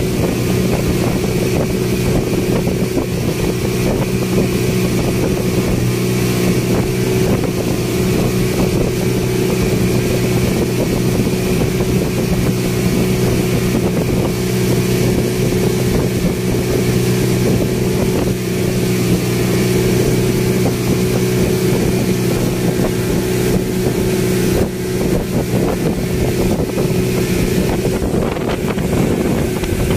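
Passenger speedboat's engine running steadily at cruising speed, a constant drone heard from inside the covered cabin, over a steady rush of wind.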